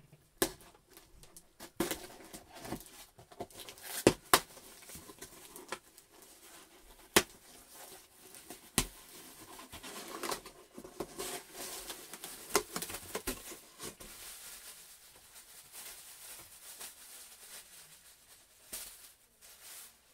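A cardboard shipping box being cut open with scissors and its flaps pulled apart, with scattered sharp snaps and knocks. A plastic bag rustles as a cap is pulled out of it.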